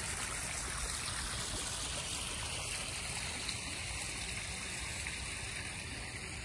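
Small backyard pond waterfall spilling over rocks into the pond: a steady, even rush of splashing water.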